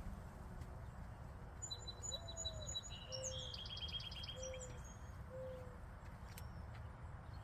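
Garden birds calling: a songbird gives a quick run of high, rapidly repeated notes for about three seconds, while four short low notes sound about a second apart. A steady low rumble lies underneath.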